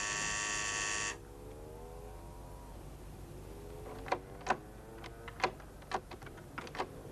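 An electric door buzzer sounds once for about a second and cuts off. From about four seconds in come a string of sharp clicks and knocks as the front door's lock and latch are worked.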